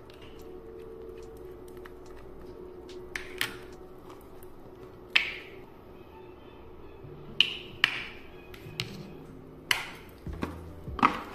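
Plastic caps on skincare containers being handled: a tube's screw cap set down on the counter and a bottle's flip-top cap snapped open and shut, giving several sharp clicks and taps a second or two apart.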